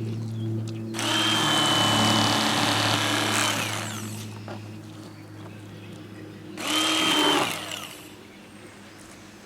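Cordless electric fillet knife run in two bursts as it cuts fish, a high motor whine over the blade noise: the first burst about two and a half seconds long, the second under a second.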